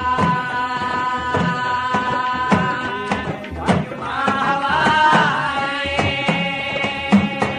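A group of men singing a folk devotional bhajan in unison, holding long wavering notes. Small hand-held drums struck with thin sticks keep the beat, and the strokes quicken near the end.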